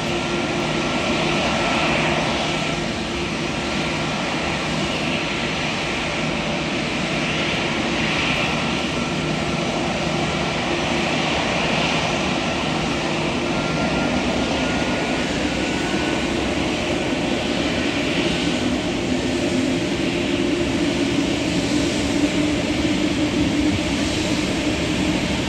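Jet airliner engines running steadily: a continuous rush of engine noise with several held whining tones.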